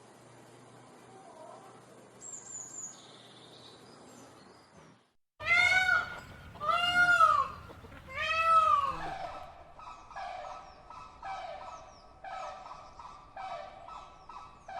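Faint bird chirping, then after a sudden cut about five seconds in, a bird gives three loud, arching calls, followed by a quick run of shorter repeated calls, about two a second.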